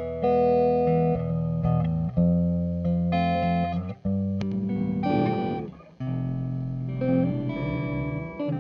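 Electric guitar, a 1976 Gibson ES-335, played through a Red Panda Particle granular delay pedal: sustained notes and chords with delayed repeats. The repeats waver in pitch about halfway through, and there is a brief drop-out near the end.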